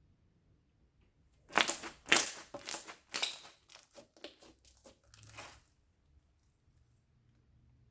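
Slime being squeezed and pressed by hand, giving a run of crackling, crunching sounds from about a second and a half in until about five and a half seconds, loudest at the start.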